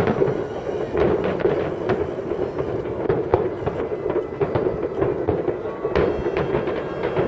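Fireworks going off: many overlapping bangs and crackles, with louder bursts about a second in, a little after three seconds and around six seconds, over a steady low din.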